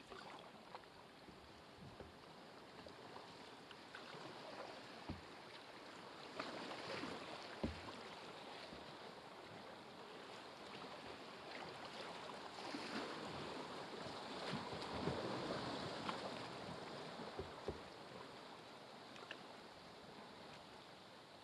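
Faint rush of river rapids around a moving canoe, swelling and easing as it runs down the current, with a few short sharp knocks scattered through.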